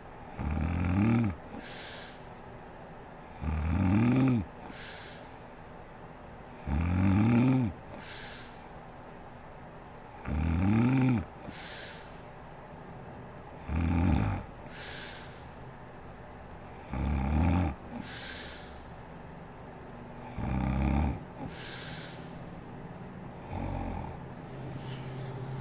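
A sleeping woman snoring: eight snores about every three to three and a half seconds. Each snore is a pitched rasp that rises in pitch and is followed by a short breathy hiss. The last few snores are shorter and fainter.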